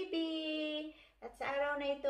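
Background song with a high singing voice holding steady notes that step from one pitch to the next, dropping out briefly a little past the middle.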